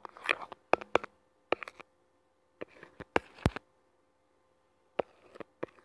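Irregular sharp taps and short scratchy rubs, about a dozen, bunched in the first three and a half seconds with a few more near the end: a fingertip or stylus tapping and sliding on a phone's touchscreen while drawing.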